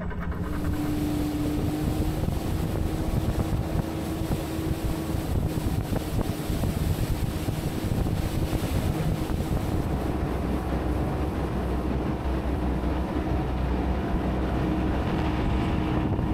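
Small wooden motorboat's engine running steadily at cruising speed, a constant hum over water and hull noise, with wind buffeting the microphone. The low rumble gets heavier about two-thirds of the way through.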